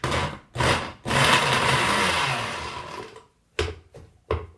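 Kitchen blender run in pulses, chopping cubes of foliage material in water: a few short pulses and one longer run of about two seconds that fades as it stops.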